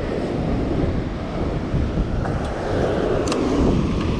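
Strong wind buffeting the microphone over heavy surf breaking on the beach, a steady rumbling rush, with one sharp click about three seconds in.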